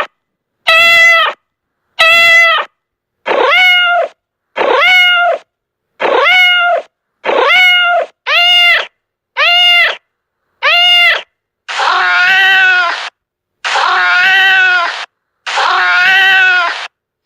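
Domestic cat meowing over and over, about ten short meows each rising and falling in pitch, separated by silent gaps, followed by three longer, drawn-out meows.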